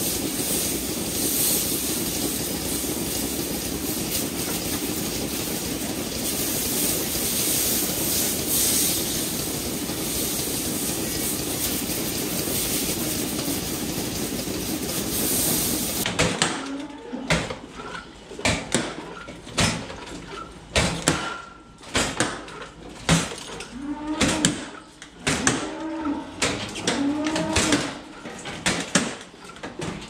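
Water from a hose hissing steadily as it sprays the milking clusters clean, cutting off about halfway through. Then come sharp clanks and knocks of the milking clusters being handled, with cows mooing a few times near the end.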